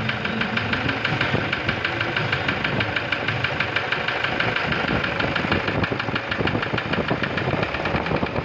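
Toyota Revo's 1KD diesel engine running under light throttle, with a fast, even knocking through the running. The sound is the engine knock under diagnosis.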